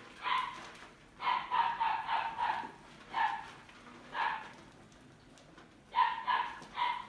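Rodents squealing in repeated short bursts of high, pitched squeaks, with a longer run of squeals about a second in and another near the end.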